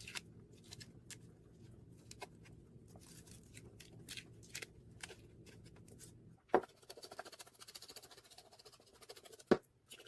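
Skin being peeled off split bellflower (doraji) roots: soft scraping and peeling with many small clicks, and two sharper knocks about six and a half and nine and a half seconds in. A faint low hum underneath stops about six seconds in.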